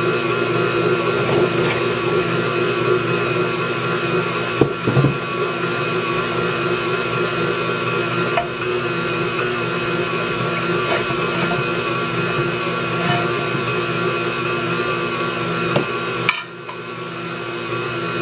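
KitchenAid stand mixer running steadily as it kneads a stiff, still-sticky dough in a steel bowl, its motor hum holding one even pitch. A few sharp knocks come about five seconds in and again near the end, followed by a brief dip in the hum.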